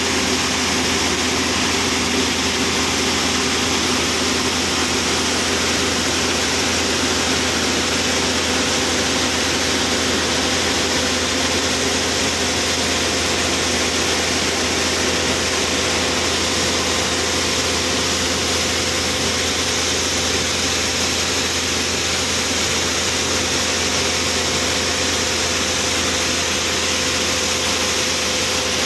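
Mobile pneumatic vacuum unloader running continuously while sucking kernel cargo out of a ship's hold. It makes a constant machine drone under a broad hiss, with no change in speed.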